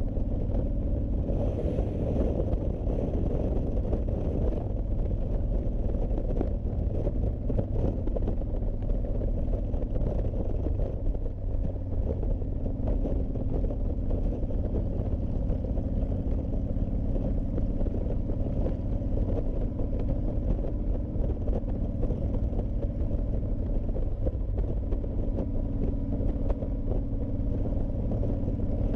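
Honda VTX1300C's liquid-cooled V-twin engine running steadily while riding, under a constant low rush of wind and road noise.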